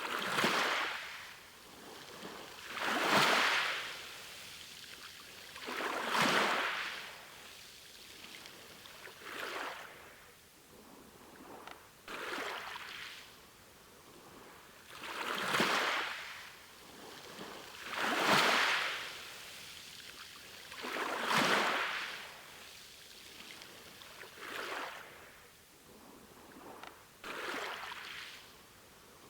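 Small sea waves washing in, one noisy surge of water about every three seconds, each swelling up and fading away.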